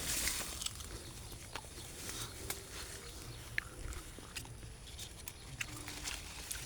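Faint animal calls, two brief low sounds, amid scattered clicks and rustling.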